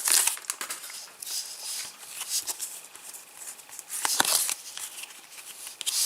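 Foil trading-card packet crinkling and rustling as it is torn open and handled, in short bursts with small clicks between.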